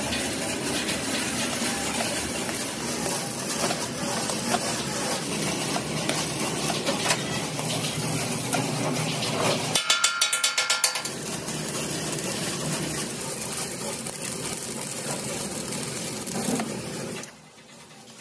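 Stick (arc) welding on steel: the electrode's arc crackles and sizzles steadily while a bracket is welded onto a compressor tank. About ten seconds in there is a second of rapid sharp taps, and the crackle stops abruptly near the end.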